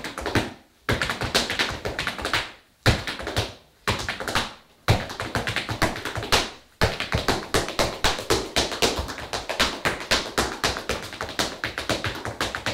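Old-style Irish step dancing: hard-soled shoes beating rapid rhythms on a hardwood floor, in quick phrases broken by a few short pauses.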